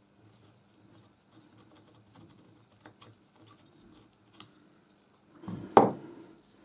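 Faint scraping and small clicks of a thin steel pick working around the bearing of a lathe live centre, with a sharp tick a little after four seconds in. Near the end comes a single loud knock, the metal centre handled against the workbench.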